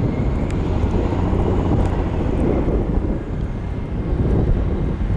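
Boeing 727 freighter's three Pratt & Whitney JT8D-17 turbofans running after landing, a steady low rumble mixed with wind buffeting the microphone.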